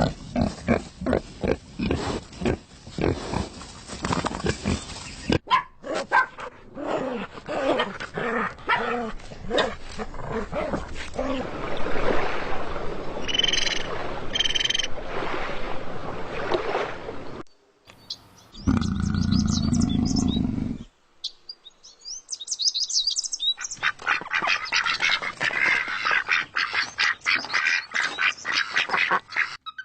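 Animal sounds from a string of short clips cut one after another, changing abruptly several times, with two brief breaks about halfway through.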